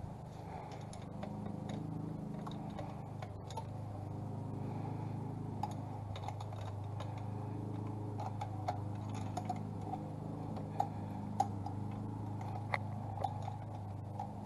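Scattered light clicks and taps of hand tools and small metal parts as a carburetor's fittings are worked loose, a few sharper clicks in the second half, over a steady low hum.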